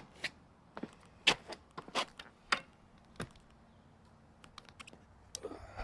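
Apollo Ghost electric scooter's hub motor clicking or knocking, about two sharp clicks a second, then a few faint quick ticks near the end: the owner takes this for a bad motor.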